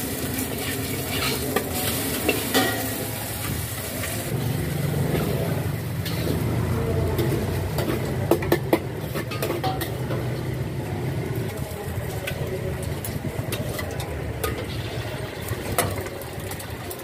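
Egg and noodles sizzling in hot oil in a steel wok, with a metal spatula scraping and clinking against the wok now and then, in short clusters, over a steady low rumble.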